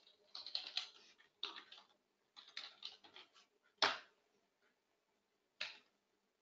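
Computer keyboard typing: short runs of quick keystrokes, then one sharper, louder click about four seconds in and another near the end.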